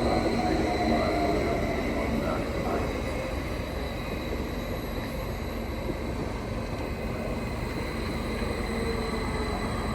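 A train running, a steady rolling rumble with a faint, steady high whine over it.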